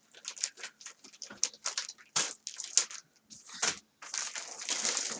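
Plastic food packaging crinkling and rustling as it is handled, in a string of short crackles, then a longer, steadier rustle near the end.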